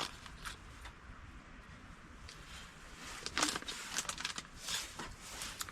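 Short rustles and light clicks of food and packaging being handled while a lettuce wrap is assembled, busier in the second half.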